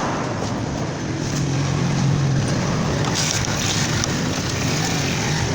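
Honda CG 125's air-cooled single-cylinder four-stroke engine running steadily.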